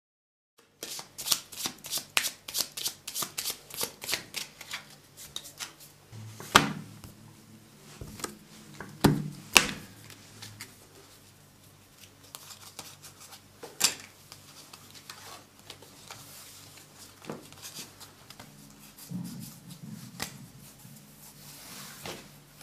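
Playing cards being handled on a table: a quick run of light snaps at about three to four a second for the first few seconds, like shuffling or dealing, then single sharper slaps of cards every few seconds, over a faint low hum.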